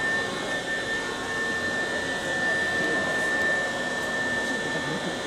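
Steady machinery hum and hiss with a steady high-pitched whine running through it.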